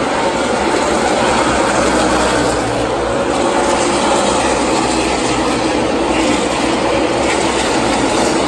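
A field of NASCAR Xfinity Series stock cars with V8 engines running around the track together, a loud, steady sound of many engines at once.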